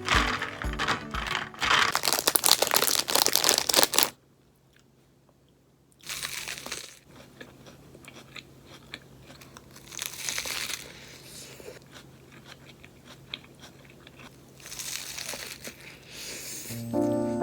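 Close-up handling noises: dense rustling and crackling for about four seconds, then a sudden silence of about two seconds, then softer scattered rustles and taps.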